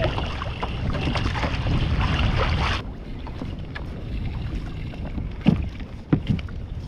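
Wind buffeting the microphone over open water, cutting off abruptly about three seconds in to a quieter wash, followed by two dull knocks about half a second apart near the end.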